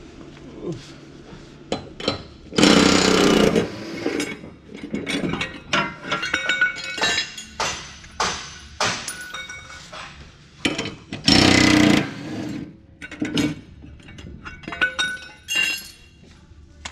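Cordless impact wrench with a 30 mm socket hammering the mower deck's blade nuts loose, in two bursts of about a second each, a few seconds in and again past the middle, with shorter bursts and sharp metallic clinks of the tool and blades being handled between.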